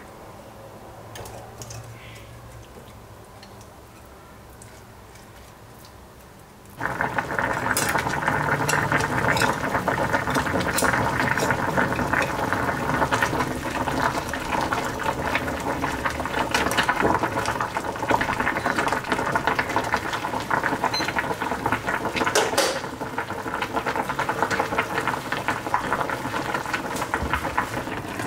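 Small saucepan of sugar and soy-sauce liquid with pieces of fried tofu boiling. It is faint at first, then suddenly becomes a loud, dense bubbling and crackling about seven seconds in.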